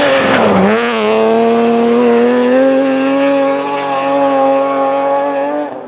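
BMW E36 3 Series rally car passing close at speed, its engine note dropping as it goes by, then pulling away at full throttle in a steady, slowly rising note. The sound cuts off suddenly near the end.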